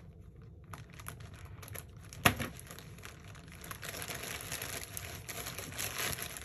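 Scissors snipping into a plastic poly mailer, with one sharp snap about two seconds in. Then the plastic crinkles steadily as the mailer is pulled open by hand.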